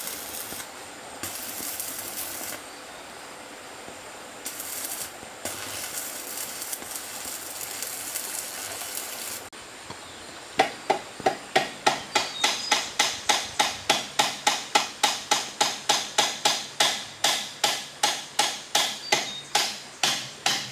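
A hand tool striking repeatedly and evenly, about three sharp blows a second, starting about halfway in. The blows follow stretches of hissing noise.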